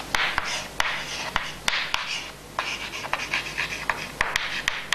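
Chalk writing on a chalkboard: a run of short scratchy strokes of the chalk across the board, with several sharp taps where the chalk strikes it.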